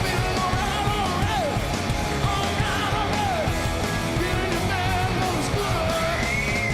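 Rock band playing live: a lead line with bending, sliding notes over drums and a driving band, then a long high note with vibrato near the end.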